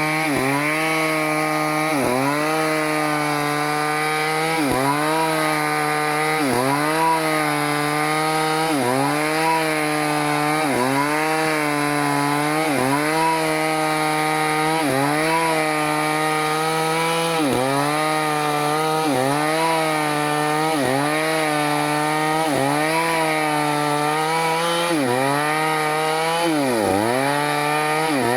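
Stihl chainsaw running at high revs, cutting into teak wood. Its engine pitch dips briefly about every two seconds as the chain bites into the cut, then climbs back.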